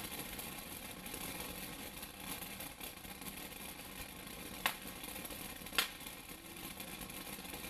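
A "Raindrops" ground fountain firework burning: a steady hiss of spraying sparks with a fine crackle, and two sharp pops a little past halfway, about a second apart.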